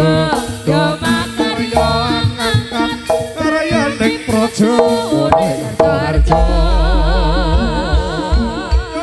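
Live Javanese jaranan music played loud through a PA sound system: kendang hand-drum strokes and gamelan under a female singer. About six seconds in, a deep bass enters along with a wavering melodic line.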